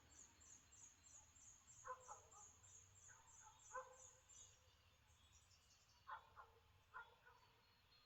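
Faint bird calls: a rapid run of thin, high notes, about four a second, that fades away past the middle, with a few short lower calls in between.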